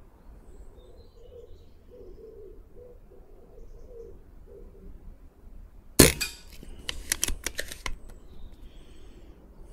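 A Brocock BRK Ghost .177 PCP bullpup air rifle fires once with a sharp crack, about six seconds in. About a second later comes a quick run of metallic clicks as the side lever is worked to cycle the magazine and chamber the next pellet.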